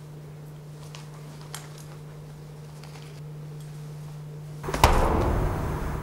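Quiet room with a low steady hum and a few faint clicks. Near the end a sudden, loud burst of noise starts with a sharp knock and runs on for about a second until it cuts off.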